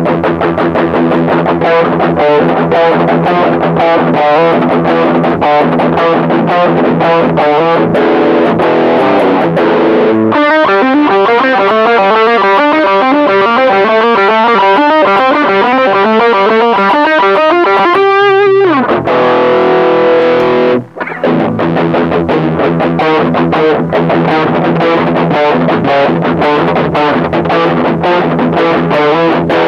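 Distorted electric guitar played through a TC Electronic HyperGravity mini compressor pedal: rhythmic chords, then a fast single-note lead run from about ten seconds in that ends in a downward slide, then chords again after a brief break. The compressor is bypassed by the end.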